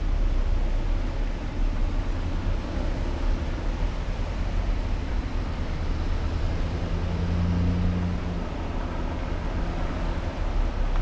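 A line of police SUVs and cars driving past, a steady low engine and tyre rumble, with one vehicle's engine hum swelling about six seconds in and fading a couple of seconds later.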